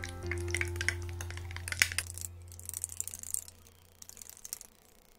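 A small spoon clicking and scraping against a little jar as face cream is stirred, in quick irregular taps that thin out after about two seconds. Soft background music runs under it and fades out about three seconds in.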